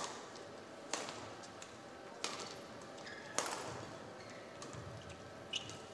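Badminton rackets striking a shuttlecock during a rally: five sharp, short hits, roughly one a second, with a longer gap before the last.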